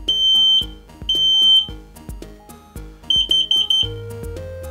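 Smoke alarm sounding during a test: two long, high-pitched beeps a second apart, then, after a pause, a quick run of about five short beeps about three seconds in. Background music plays underneath.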